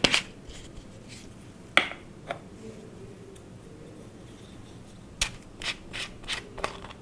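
Hands working clear slime, giving short sharp sticky clicks and pops: one at the start, two around two seconds in, then a quick run of five near the end.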